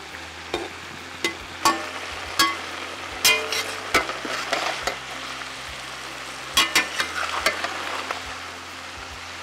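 Steel spatula scraping and clanking against a metal kadai as cauliflower, bell peppers and onion are stir-fried, over a steady sizzle. The clanks are sharp and ring briefly; a cluster comes in the first four seconds and another near the end.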